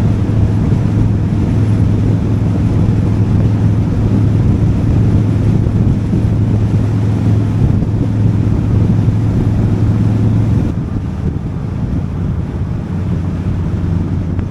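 Harley-Davidson V-twin motorcycle engine running steadily at highway speed, with wind rushing over the microphone. The engine eases off and gets quieter about three-quarters of the way through.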